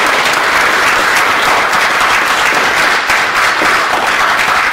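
Loud, steady audience applause, many hands clapping together.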